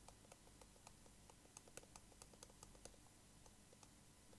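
Faint, irregular ticks and taps of a stylus on a tablet surface during handwriting, several a second.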